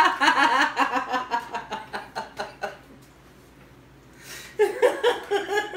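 People laughing hard: a fit of quick, pulsing laughter that fades out about three seconds in, then a fresh burst of laughter near the end.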